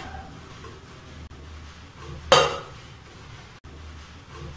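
A single metal clank from an aluminium pressure cooker, about two seconds in, ringing briefly, over a low steady hum.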